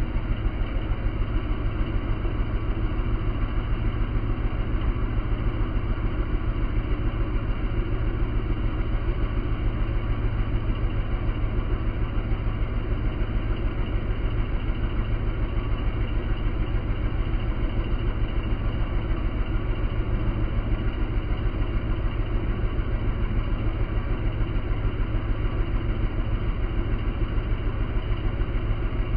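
2005 Huskee LT4600 riding lawn mower's engine running steadily at a constant speed, with an even pulsing beat.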